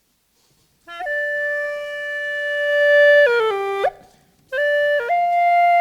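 Hulusi, the Chinese gourd flute with a free reed, playing a slow melody. About a second in it starts on a long held note that swells, then steps down through a few lower notes and breaks off. After a short breath pause a new phrase begins.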